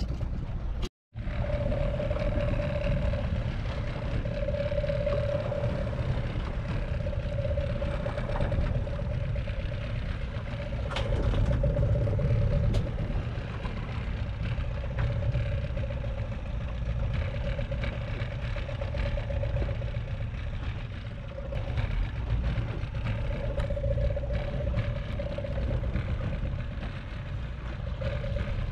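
Small outboard motor running steadily with a constant whine, over a low rumble of wind and sea. The sound cuts out for an instant about a second in.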